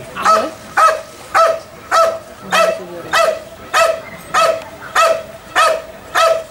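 Belgian Malinois barking steadily and rhythmically, a sharp bark about every 0.6 seconds. This is the 'bark and hold' of IPO protection work: the dog guards the helper cornered in the blind without biting.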